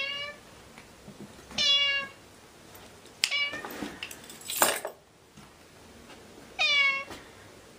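Ginger tabby cat meowing: three short calls, the first two about a second and a half apart and the third some five seconds later, each dropping in pitch at its end. Between them come a few clicks and one short, loud noisy burst.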